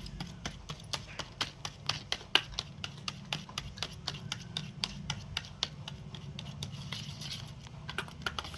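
Sticky homemade slime mixture of glue, cream and baking soda being stirred round in a bowl: a steady, irregular run of small clicks and smacks, several a second.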